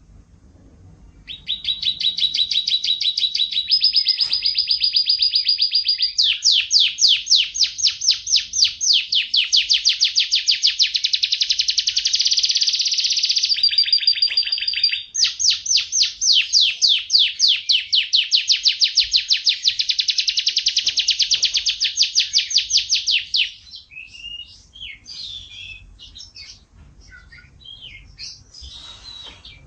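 Kenari F1 canary singing: long rolling trills of rapidly repeated notes that change to a new note pattern several times. About 23 seconds in, the trills give way to scattered short chirps.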